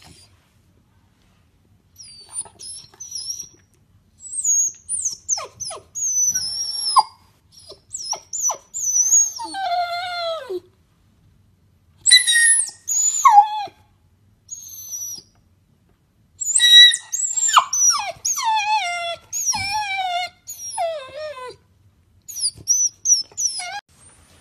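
Shar-Pei puppy whining and yelping: high, sliding cries, most falling in pitch, in runs of several calls with short pauses between them.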